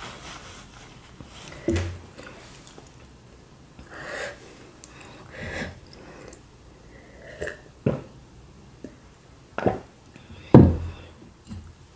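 Sniffles and breaths of someone who has just eaten very spicy sambal bakso, a tissue held to the nose, then drinking and a few short sudden knocks, the loudest about ten and a half seconds in.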